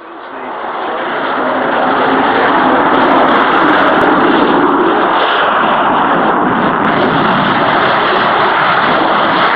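Jet aircraft engine noise, a loud, steady rushing sound that builds over the first couple of seconds and then holds.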